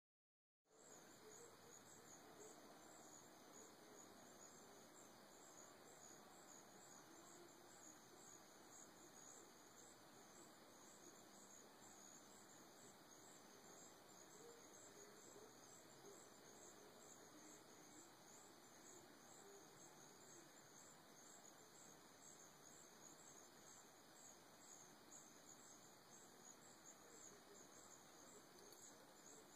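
Near silence, with faint insects chirping in a high, rapid, even pulse.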